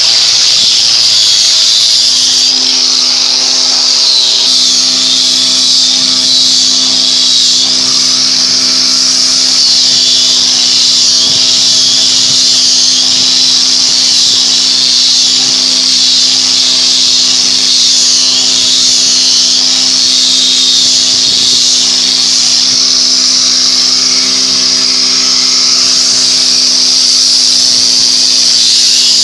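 Steady running machinery: a constant motor hum under a loud high hiss, unbroken throughout.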